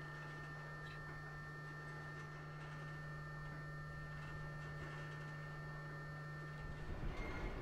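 A steady low hum with faint, steady high tones above it. Near the end, a louder low rumbling noise comes in.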